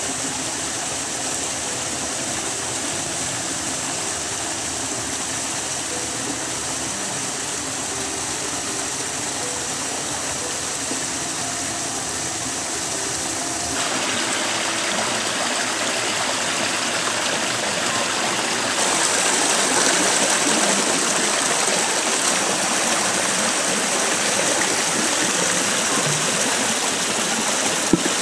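Small waterfall splashing over rocks into a stream: a steady rush of water that grows louder and brighter about halfway through and again about two-thirds of the way through.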